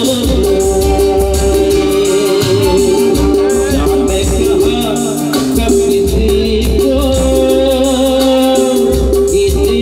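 Live band music played loud through a PA: a male vocalist singing into a microphone over electric guitars, keyboards and bass with a steady beat.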